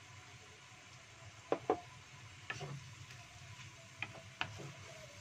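Wooden spatula stirring a saucy stir-fry in a non-stick wok, clacking against the pan in several sharp knocks, mostly in pairs, over a faint steady sizzle.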